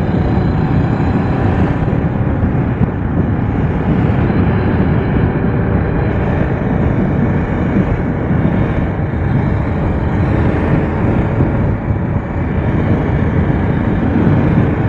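Steady riding noise from a Honda CBR500R motorcycle underway at cruising speed: wind rushing over the microphone, mixed with the bike's running parallel-twin engine, with no sudden events.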